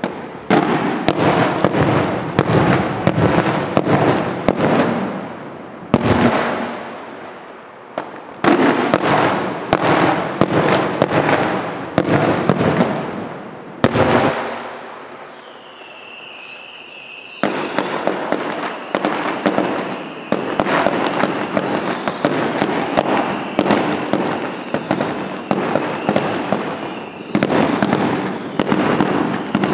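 Aerial fireworks going off in dense volleys of rapid bangs and crackle, with short lulls between volleys. About halfway through, a steady high whistle starts and carries on over the bangs.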